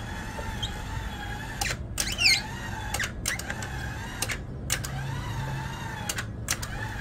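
Battery-powered tracked stair-climber climbing steps: its electric motor and gearbox whine steadily, with a pair of sharp clacks about every second and a half.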